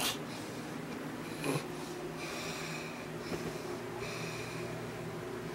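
A sleeper snoring, with a loud snort right at the start and another about a second and a half in, and hissy breathing between them.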